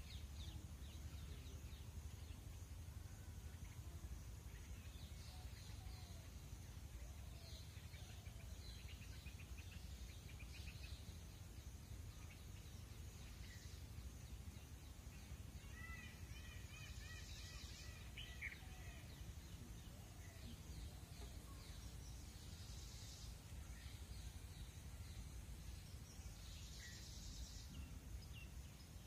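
Faint rural ambience: small birds chirping now and then over a steady high insect hum and a low rumble, with a short trilled bird call about sixteen seconds in and a few brief high buzzes.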